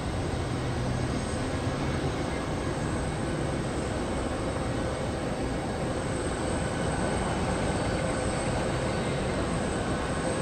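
Steady jet engine noise from an arriving Airbus A330-200 airliner, even in loudness throughout.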